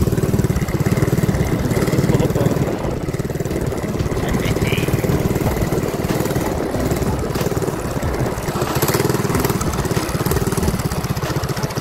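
Mini bike's small engine running under way, a fast pulsing engine note that eases off a little about two and a half seconds in and then picks up again.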